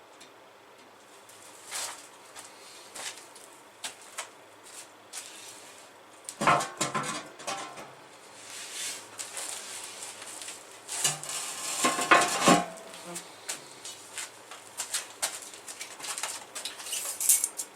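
Loose metal pieces clinking and clattering as they are handled and set down, with two louder bouts of clattering, about six seconds in and about twelve seconds in.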